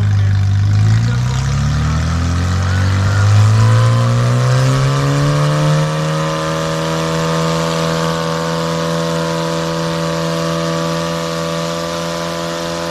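Small homemade tractor's engine revving up over several seconds, then held at steady high revs under heavy load as it drags a truck through mud.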